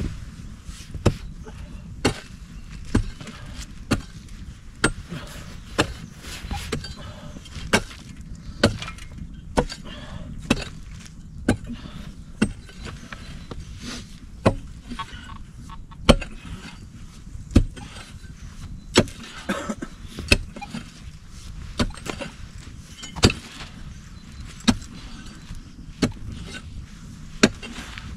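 A hand digging tool striking hard earth and stones in a pit, a sharp blow about once a second.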